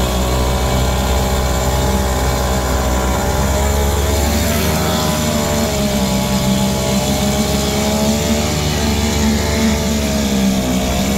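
Tanaka 175 two-stroke outboard motor running in a barrel of water, its propeller churning the water. The engine speed wavers a little, rising about five seconds in and dipping briefly near the end.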